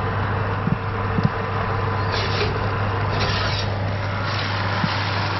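Fan-forced oven running with its door open: a steady whirring hum and hiss. There are a couple of light knocks about a second in, then two short scrapes as a glass baking dish is slid out along the wire oven rack.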